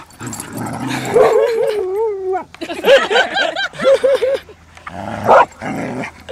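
Dogs vocalizing while they wrestle in play: a long wavering call lasting over a second, then a run of short rising-and-falling calls, and a short loud one about five seconds in.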